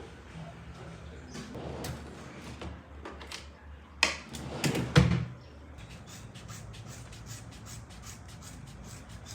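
Household handling noises: scattered light taps and clicks, then two loud knocks about a second apart near the middle, and after them a run of faint, evenly spaced ticks.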